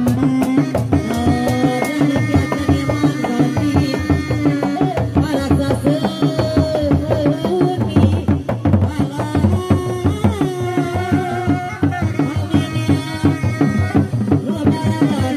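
Sundanese reak music: dogdog drums, single-headed and hand-beaten, played in a fast, dense rhythm, with a wavering melody held over them that slides between notes.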